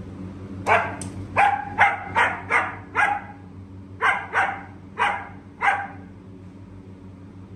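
German Shepherd barking repeatedly, about eleven sharp barks in two quick runs, over a steady low hum.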